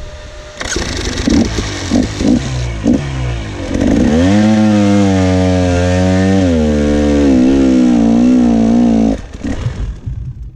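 Enduro dirt bike engine revved in several short blips, then held at high revs with a wavering pitch for about five seconds while climbing a hill. It cuts out suddenly about nine seconds in, with a few short sputters as the engine dies and the bike goes down.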